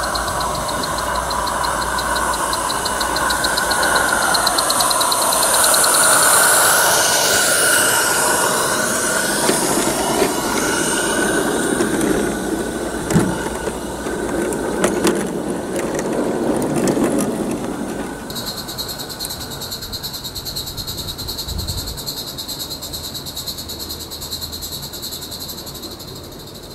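Roundhouse live steam garden-railway locomotive and its coaches running past: the engine's steam hiss and chuffing, loudest about six seconds in. Several sharp clicks from the wheels on the track follow. After about eighteen seconds the train sound falls away, leaving a steady high hiss.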